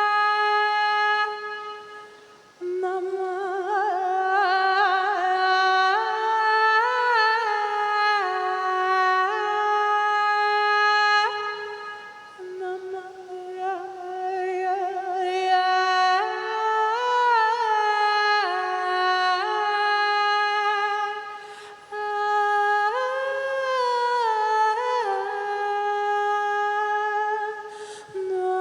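A single unaccompanied voice singing wordless, long-held tones, gliding slowly between notes with a wavering pitch. It breaks off briefly for breath about every ten seconds.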